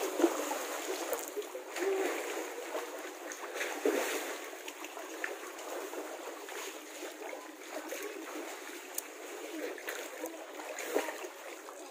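Water splashing and sloshing as people move about in a pool of spring water, with a splash just after the start and then steadier lapping and churning.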